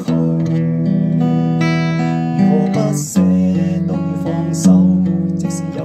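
Fender steel-string acoustic guitar fingerpicked, playing arpeggiated chords with ringing notes. The chord changes about halfway through.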